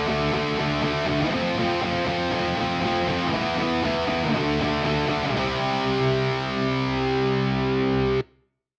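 Distorted electric guitar through the ML Sound Lab ML800 amp-sim plugin, a model of a Marshall JCM800, on its American Rock preset, playing a chord riff that ends on a long held chord. The guitar cuts off suddenly about eight seconds in.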